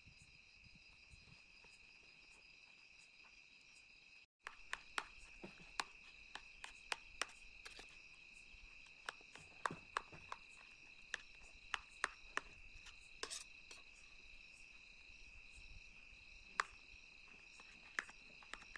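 Crickets chirring steadily. From about four seconds in, irregular sharp taps and knocks come one or two a second.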